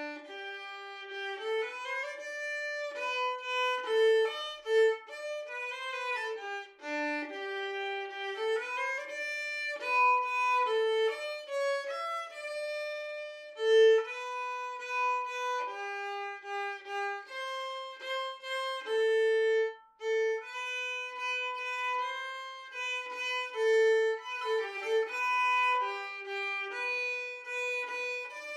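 Violin playing a melody of mostly short notes with some longer held ones, as background music.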